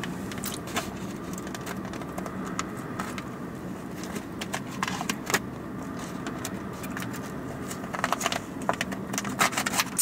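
Plastic clicks and crackles of a clear plastic cup lid being pressed and worked back onto the cup, coming thicker near the end, over a steady hum inside a car.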